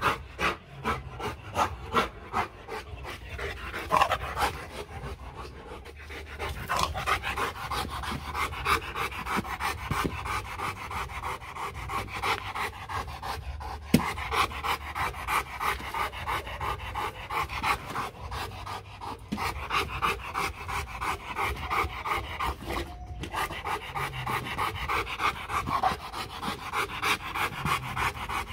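A Rottweiler panting fast and rhythmically with its tongue out, breathless from leaping about in play.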